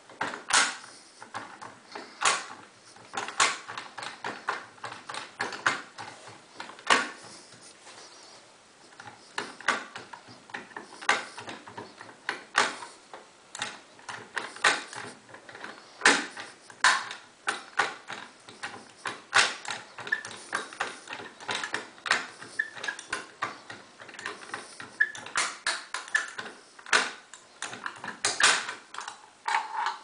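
Irregular metallic clicks and taps from a lock-picking and decoding tool being worked in an Auno 6+6 lever safe lock, its levers and tool moving inside the lock; a few sharp clicks stand out above the steady run of small ones.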